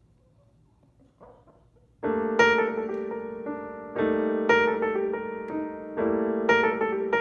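Near silence with a faint brief sound about a second in, then piano music starts about two seconds in, a phrase of struck notes that repeats about every two seconds.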